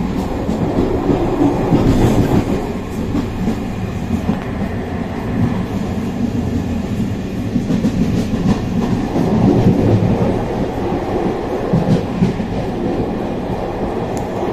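Vehicle travelling along a rain-wet road: a loud, steady low rumble of running gear and tyre noise, with a few faint ticks.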